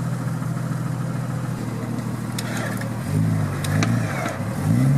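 Jeep Grand Cherokee engine running steadily at low revs, then revving up and down in short bursts from about three seconds in as the Jeep crawls over rocks. A few sharp clicks are heard in between.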